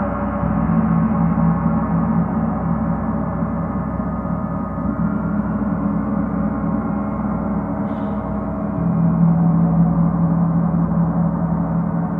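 Gong sounding continuously: a sustained wash of many overlapping tones with a strong low hum, swelling louder about half a second in and again near the nine-second mark.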